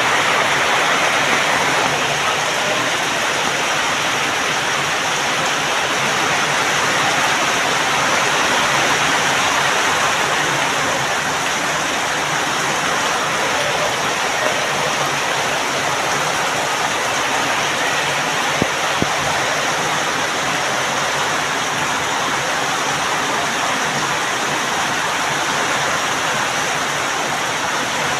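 Heavy rain pouring down steadily, a dense even hiss, with a couple of brief clicks past the middle.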